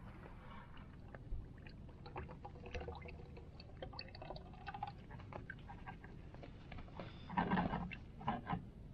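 Used oil pouring in a thin, steady stream from a plastic drain pan into a plastic 5-gallon bucket, a soft trickle with small ticks. A couple of louder handling noises come near the end.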